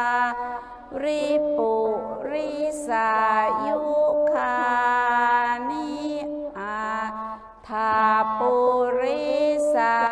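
A mantra sung in a slow, stepwise melody, the voices holding long steady notes with brief pauses between phrases.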